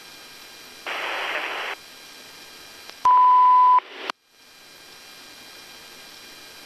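Steady radio channel hiss, broken by a short burst of radio static about a second in and then a loud, steady high-pitched beep lasting under a second about three seconds in. The audio cuts out briefly right after the beep before the hiss returns.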